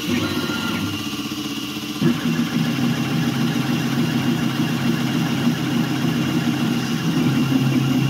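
Langmuir Systems MR-1 CNC mill's spindle running with the end mill cutting a metal part under flood coolant. The cut is a steady mechanical drone with a high whine, and it gets louder and rougher about two seconds in.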